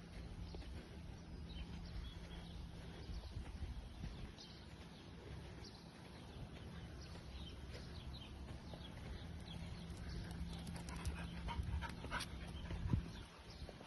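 Faint dog sounds, with short high whines or yips coming more often in the second half, over a low steady hum; one sharp knock near the end.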